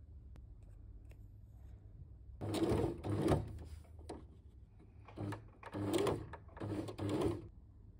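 Electric sewing machine stitching through felt in four short runs, the first about a second long and starting a couple of seconds in, the rest briefer.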